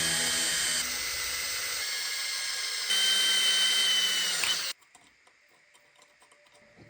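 Handheld power tool running under load, with a whine over a rough hiss. It gets louder in a couple of steps, then cuts off suddenly just before five seconds in.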